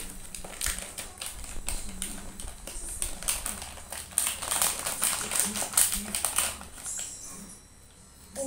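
Plastic gummy-candy packet crinkling and crackling as it is handled and opened: a dense run of rapid crackles that dies away about seven seconds in.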